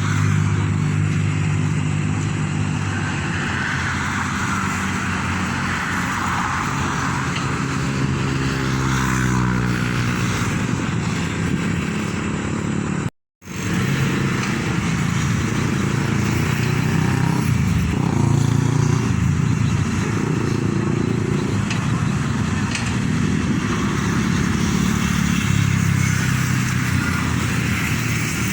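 Backhoe engine running under load, its pitch rising and falling as it works, with a brief break about halfway through.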